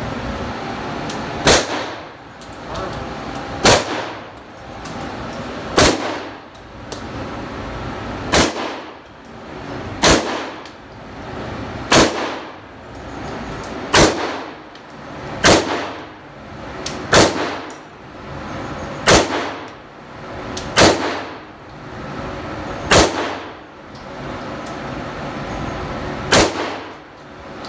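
Handgun shots at an indoor range, about fourteen single shots fired one every two seconds or so, each a sharp crack with a short metallic ring and echo off the walls.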